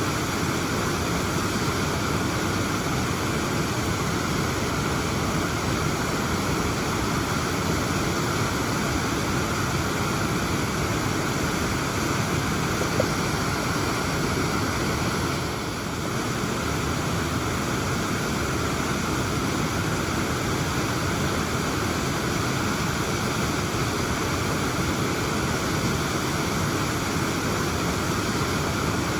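Waterfall pouring steadily, a constant rushing of water with no change in rhythm.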